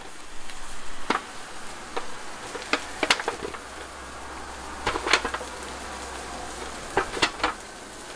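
Bread rolls stuffed with raw köfte mince being set meat-side down on a hot cast-iron grill grate: a faint steady sizzle with several light taps as each roll is placed.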